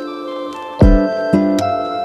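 Background music: held melodic notes with a low drum hit a little under a second in.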